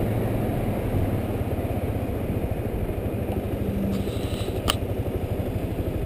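Motorcycle engine running with a steady low rumble of engine and road noise while riding slowly in traffic. A sharp click about four and a half seconds in.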